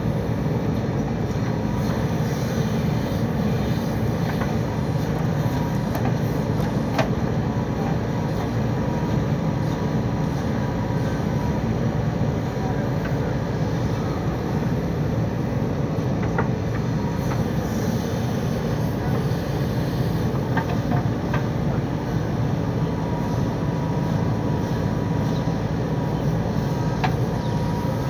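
JCB backhoe loader's diesel engine running steadily at working revs, with a few faint knocks as it works.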